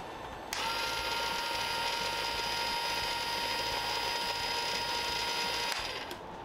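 Small battery-powered motor of a Hot Wheels Super Ultimate Garage playset running with a steady mechanical whir. It starts abruptly about half a second in and cuts off near the end, about five seconds later.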